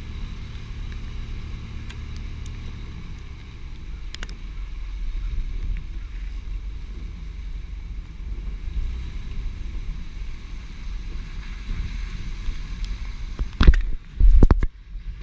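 Vehicle driving slowly, a steady low engine and road rumble picked up by a camera mounted outside by the side mirror. Near the end come two short, very loud thumps as the mounted camera is jolted.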